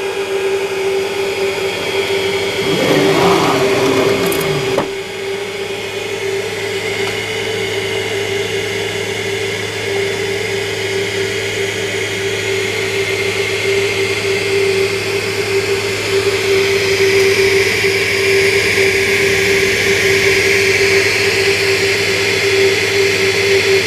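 Steady electric whir of a 3D printer's cooling fans, with a constant mid-pitched tone and a low hum. A few seconds in, a whine falls in pitch and ends in a click, after which the low hum is steadier.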